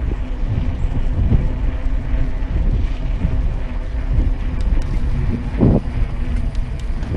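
Wind buffeting the microphone of a camera riding on a moving mountain bike, a loud low rumble with a faint steady hum under it and a few short bumps.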